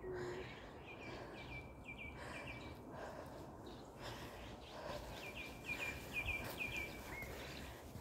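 A songbird singing two phrases of quick repeated high chirps, one about a second in and a longer one about five seconds in, over footsteps on a dry, leaf-strewn dirt trail.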